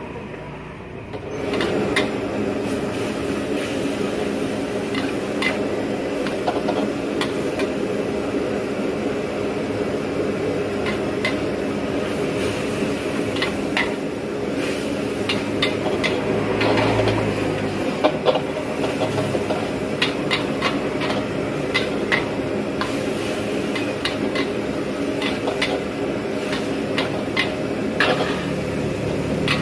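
A metal ladle repeatedly scraping and clanking against a steel wok while flat rice noodles are stir-fried, with irregular sharp knocks. Underneath is a steady drone that sets in about a second in.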